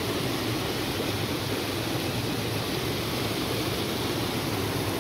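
Steady rushing of water from the 240-foot Pistyll Rhaeadr waterfall.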